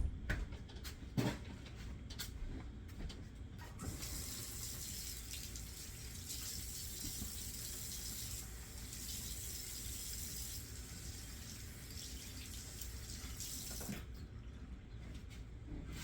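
A few knocks, then a kitchen faucet runs steadily for about ten seconds while hands are washed under it, and shuts off near the end.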